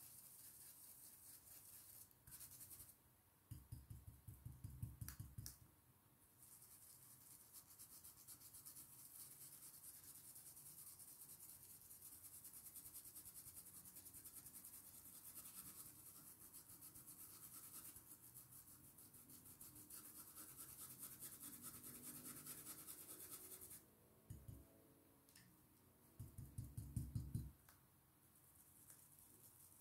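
Faint, fast scratchy rubbing of a stiff stencil brush worked in small circles over a plastic stencil onto fabric. Twice, about four seconds in and near the end, there is a short louder spell of rapid low tapping.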